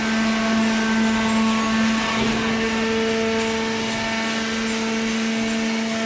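Hydraulic baler's electric motor and pump running with a steady hum.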